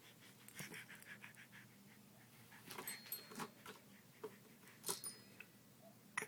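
Faint sounds from a dog: a quick run of short soft breaths or sniffs about a second in, then scattered small clicks and taps and a few brief louder snuffles.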